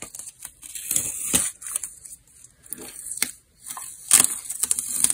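Masking tape being peeled off the edge of watercolor paper: an irregular crackling rip, with sharper pulls about a second in, again just after, and near the end.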